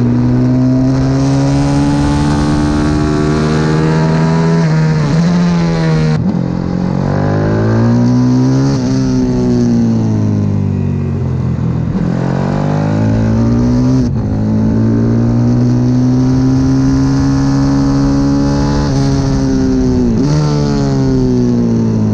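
CW 140 pit bike's single-cylinder four-stroke engine heard on board at racing speed, revving hard. Its pitch climbs as it accelerates and drops sharply when the throttle shuts, several times over, with sudden drops about six and fourteen seconds in.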